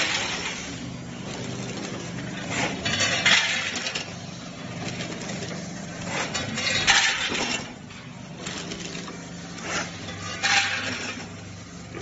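Vertical form-fill-seal packing machine running with a steady low motor hum, and every two to three seconds a crackling, rattling burst as a charge of chips drops through the forming tube into the plastic film bag.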